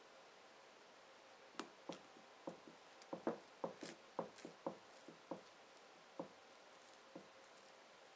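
Knife cutting through brownies in a blue glass baking dish, the blade clicking and tapping against the glass: about fifteen short, sharp clicks at uneven intervals, from about a second and a half in until about seven seconds in.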